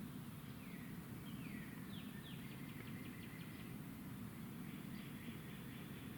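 Bird calls: several high notes that slide downward, then a quick run of short chips, with a second run near the end, over a steady low outdoor background noise.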